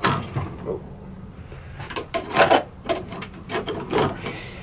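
Seven or eight light, irregularly spaced taps of a tool on the snap ring of a motorcycle clutch master cylinder held in a vise, seating the ring in its groove. The taps are kept gentle so the snap ring does not snap.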